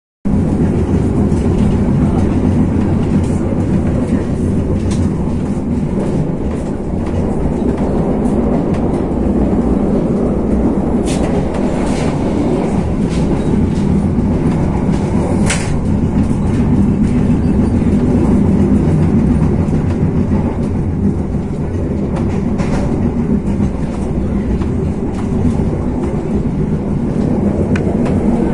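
Passenger train heard from inside the coach while running: a steady, loud low rumble of wheels on the track, with a few sharp clicks about halfway through.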